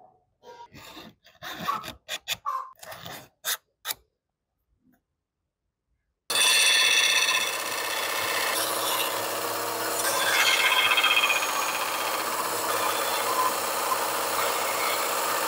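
A few light knocks and scrapes of handling in the first seconds, then after a short silence a scroll saw starts up suddenly and runs steadily, its reciprocating blade cutting through black plastic sheet with a rasping buzz over a low motor hum.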